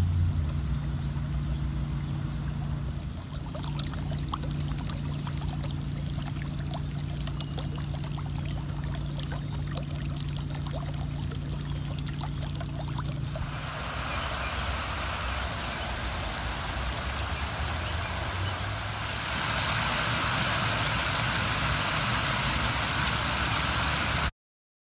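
Spring water bubbling up through a wet patch of lawn, faint scattered pops over a steady low hum. About halfway in it gives way to a close, steady trickling of water, then to a louder rush of water spilling over a small stone ledge, which cuts off suddenly near the end.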